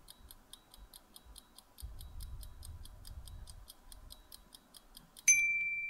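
Quiz countdown timer ticking, about four ticks a second, then a single high beep about five seconds in as the countdown runs out.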